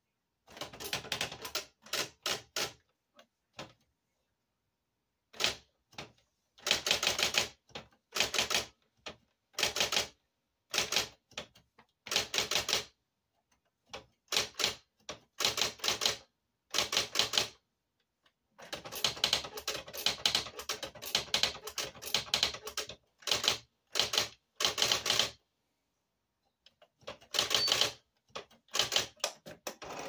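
Electric typewriter being typed on: quick runs of sharp key strikes in word-length bursts, broken by short gaps and a few pauses of about a second.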